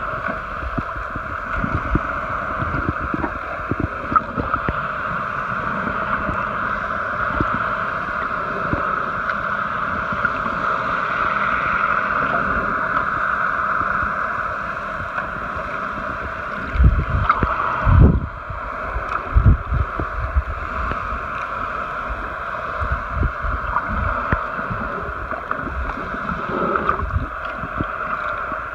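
Muffled underwater sound picked up by a submerged camera: a steady water hiss with gurgling and irregular low thumps, the thumps loudest a little past halfway.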